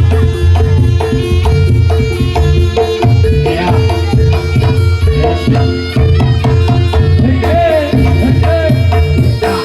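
Loud live Javanese barongan accompaniment music: a fast, driving hand-drum and percussion beat over a held tone, with a sliding melody line partway through.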